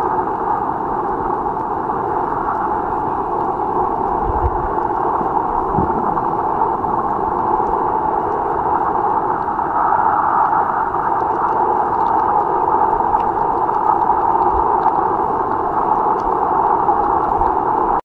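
Steady muffled rushing noise of shallow seawater picked up by a camera underwater, with a couple of brief low thumps about four and six seconds in.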